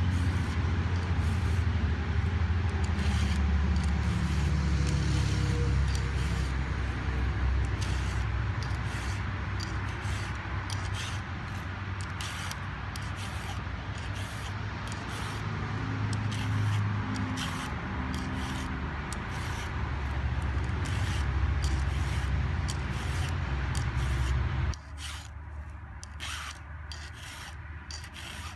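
Round file being stroked by hand across the cutters of a Husqvarna 372XP chainsaw chain, a steady run of repeated rasping file strokes; the chain was dulled by hitting dirt. A low steady hum sits under the strokes and cuts off suddenly near the end.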